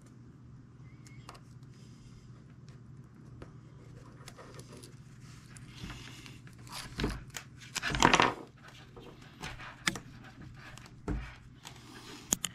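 Steel control-cable strands rasping and clicking as they are pulled and tucked through the lay of the cable by hand during a splice. Faint rustling at first, then a few sharper scrapes and clicks, the loudest a short raspy scrape about eight seconds in.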